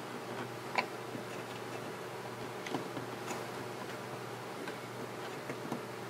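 A few light plastic clicks and taps as a cable is pushed back into place inside an Apple AirPort Extreme router, the clearest about a second in, over a steady low hum.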